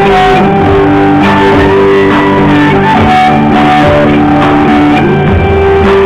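Live band playing an instrumental passage, loud: electric guitar over held chords that change every second or so, with no vocals.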